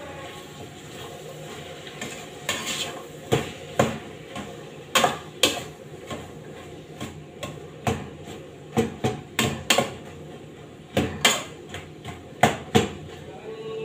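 A utensil stirring in a stainless-steel cooking pot, clinking and knocking irregularly against the pot's sides and rim, with a few louder clanks; the knocks start about two and a half seconds in.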